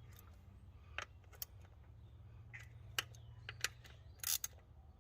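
Scattered sharp metal clicks and taps of hand tools and parts being handled during a throttle body install, with a short rattle about four seconds in, over a faint low steady hum.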